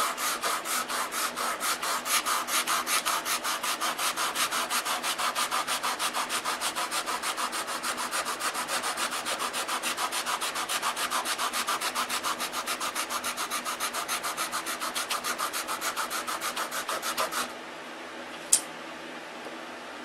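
Sandpaper rubbed back and forth by hand over a balsa wood block wingtip, feathering it into the wing, in quick even strokes at about four a second. The sanding stops near the end, followed by a single sharp click.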